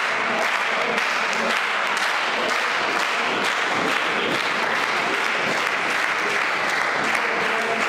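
Crowd applauding, a dense, steady clapping.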